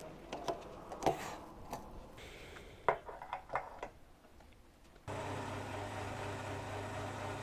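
Small clicks and knocks as a motorcycle's locking fuel-tank cap is worked and the nozzle put in. About five seconds in, a petrol pump dispenser starts abruptly with a steady hum and the rush of petrol filling the tank.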